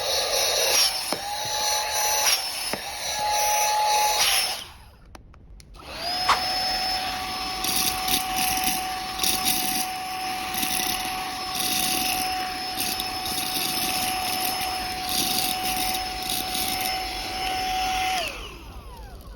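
Cordless vacuum cleaner motor running with a steady high whine, dipping briefly twice. It is switched off about four and a half seconds in and started again a second and a half later, then runs steadily until near the end, when the whine falls away as the motor winds down.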